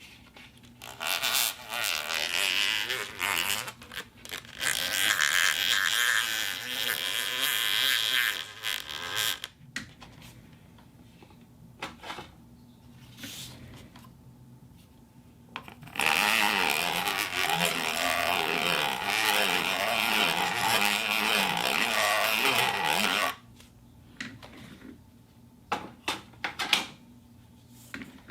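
Plastic cup being handled: two long stretches of noisy rubbing and crackling, with separate clicks and taps between them and near the end.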